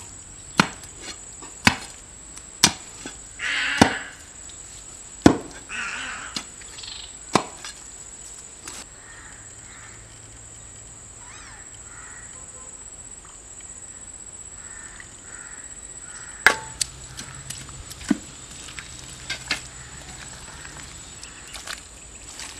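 Wet mud being dug out and slapped down by hand, packed into a hole in a pond bank, giving a string of sharp slaps and wet thuds. The slaps come thick in the first eight seconds, thin out in the middle and pick up again about sixteen seconds in.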